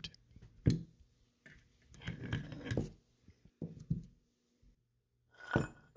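SMLE wooden buttstock and steel rifle parts being handled on a cloth mat: a few light knocks and, about two seconds in, a short scraping rub.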